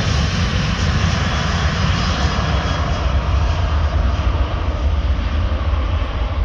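Boeing 737-800's CFM56 jet engines at full power on the takeoff roll: a loud, steady rumble and roar heard from beside the airfield.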